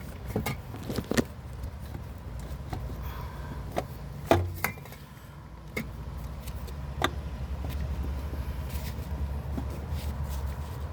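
Scattered light clicks and knocks of hands and tools handling parts and hoses in an engine bay, the loudest knock about four seconds in, over a steady low hum.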